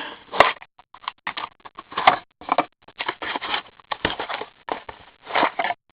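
Card box packaging rustling and tearing in short, irregular bursts as a sealed hobby box of hockey cards is unwrapped, with a sharp click about half a second in.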